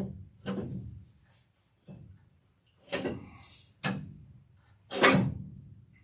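About five separate sharp knocks and clunks of parts being handled and worked into place during a header install, with near silence between them; the loudest comes about five seconds in.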